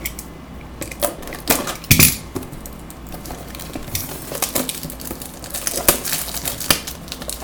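Cardboard trading-card box being handled: a few sharp taps and clicks, then busier rustling and ticking of cardboard and wrapper from about halfway through.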